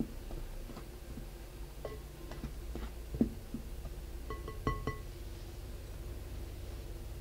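Silicone spatula stirring dry flour in a glass mixing bowl, with soft scattered knocks, then a quick run of taps against the glass a little after the middle that make the bowl ring with a clear pitch.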